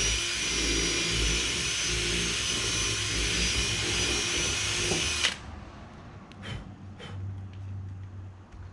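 Cordless drill running at speed while drilling a hole, for about five seconds, then stopping abruptly; a few light clicks follow.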